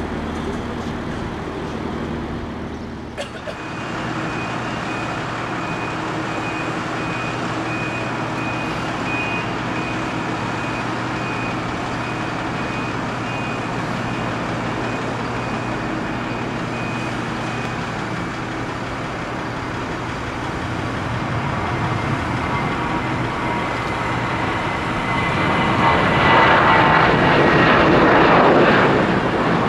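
Boeing 737-800's CFM56 turbofan engines running, with a steady noise and a thin high whine. The sound grows louder over the last few seconds as the airliner powers up for take-off.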